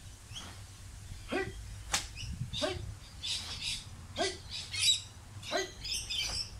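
Short animal calls repeating about every second and a half. Between them come brief sharp swishes and snaps, the karate gi cracking with the kata's strikes.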